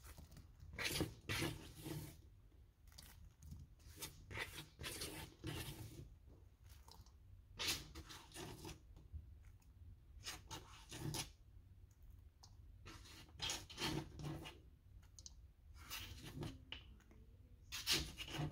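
Chopped onion dropped onto raw chicken legs in a pan: faint, irregular rustles and light clicks, a dozen or so short scrapes.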